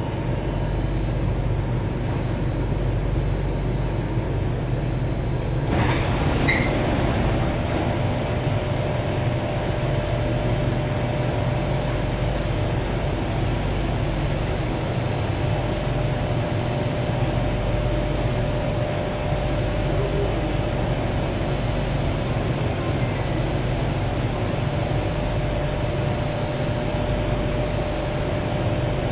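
Interior of a C751A metro car standing at a platform: the steady hum and rumble of the train's onboard equipment. About six seconds in, the sliding doors open with a brief rush of noise and short high tones.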